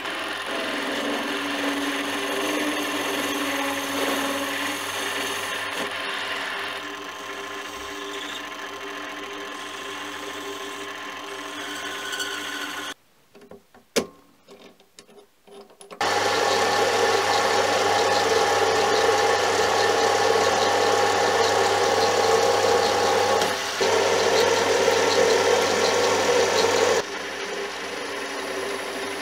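Mini lathe running, its motor and gearing whining steadily while a carbide tool turns a tool-steel part. About halfway the sound stops for a few seconds, with a single click, then the lathe runs again louder and drops back in level near the end.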